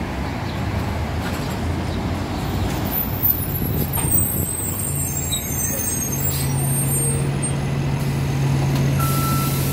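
Hybrid-electric city bus pulling in and stopping at the kerb, its drive settling into a steady low hum about six seconds in. Near the end there is a short hiss of air with a brief tone.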